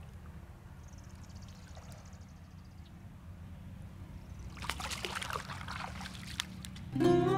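Water splashing and trickling for about two seconds past the middle, as a small carp is let back into the river. Acoustic guitar music starts right at the end.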